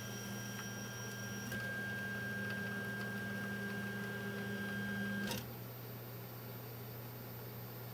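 Stepper motors of a RepStrap 3D printer driving the extruder carriage and print bed: a steady whine of several tones that shifts in pitch about a second and a half in and cuts off suddenly about five seconds in. A low steady hum runs underneath.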